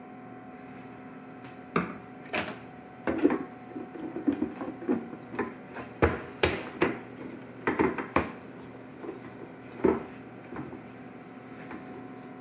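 Irregular clicks and knocks of hard plastic being handled: a dish-soap bottle squeezed and set down on the counter and the blender jar's lid pressed onto the jar. The knocks come in a loose string and stop a couple of seconds before the end.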